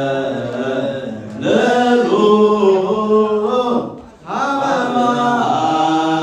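Men's voices chanting an Orthodox Tewahedo Nativity hymn (zimare) in long, drawn-out notes, breaking off briefly about four seconds in.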